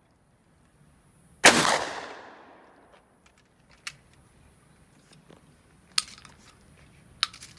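A short-barrelled (47 cm) Bayır 12-gauge double-barrel shotgun fires a single slug once, a sharp blast that echoes and dies away over about a second. A few sharp metallic clicks follow as the break action is opened and reloaded.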